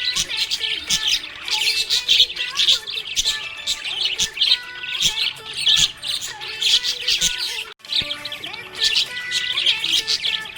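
Budgerigars chirping and warbling in a fast, continuous chatter, with a sudden, very short dropout just under eight seconds in.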